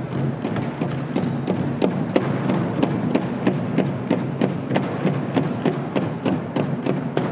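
An ensemble of children playing Korean drums with sticks, beating a steady quick rhythm of about four to five strikes a second, each beat a low drum thud with a sharp stick click.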